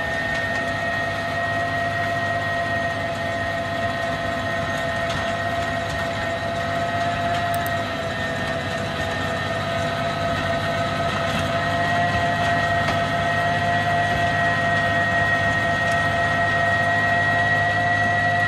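Valtra tractor running under load as it drives an FAE PTO-driven stone crusher through stony ground. A steady high whine rides over a low engine drone, a few faint ticks are heard, and it grows slightly louder toward the end.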